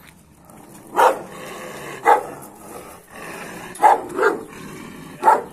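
Kangal shepherd dog barking five times, single loud barks about a second apart, with two close together a little before the end.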